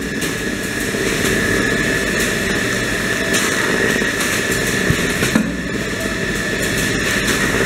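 Automatic rice baling line running: belt conveyors and their electric gear motors make a steady mechanical noise with a constant high whine and a few brief clicks.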